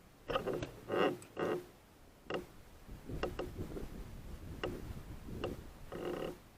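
Wild boar giving short grunting calls, a few in quick succession in the first second and a half and another near the end, with a few sharp clicks in between.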